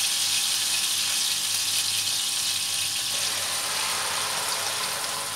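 Hot mustard oil sizzling steadily in a frying pan as a thick paste of ground coconut, black mustard and green chillies goes into it; the sizzle slowly dies down.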